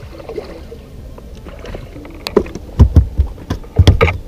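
A hooked bass splashing at the water's surface beside the boat, then from about two seconds in a run of heavy, irregular thumps and knocks on the boat, the loudest sounds here.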